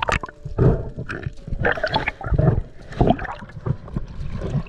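Seawater sloshing and gurgling over the camera as it moves in and out of the surface, in irregular surges.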